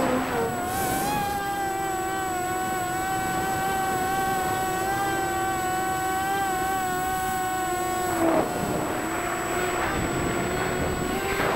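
Multirotor drone's electric motors and propellers whining steadily in flight, heard from the onboard camera, the pitch wavering slightly. Two brief louder rushes of noise come about eight seconds in and again near the end.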